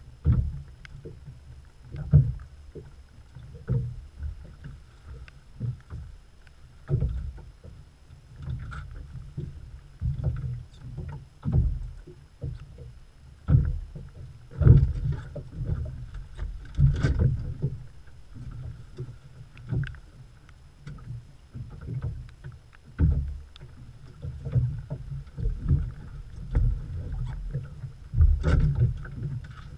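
Choppy lake water slapping against the hull of a small open boat in irregular low thuds, one every second or two, with several sharper knocks.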